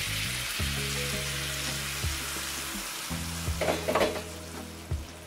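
Hot skillet of butter, garlic and seared mahi mahi sizzling as a wine-and-dill mixture is poured in. The sizzle is strongest at first and eases off. A brief clatter comes about three and a half to four seconds in.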